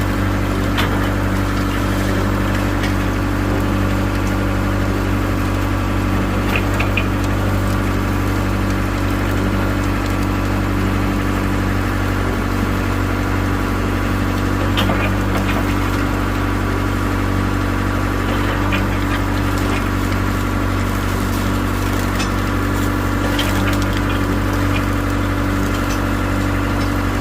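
Engine of a ground-investigation drilling rig running steadily at constant speed, with a few short clicks and knocks scattered through it.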